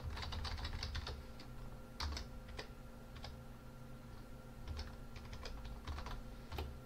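Typing on a computer keyboard: a quick run of keystrokes at the start, then single keys and short bursts spread out.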